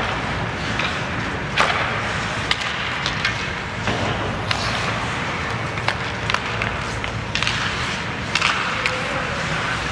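Ice hockey game sounds: skate blades scraping on the ice and sharp clacks of sticks and puck scattered every second or two, over steady rink noise.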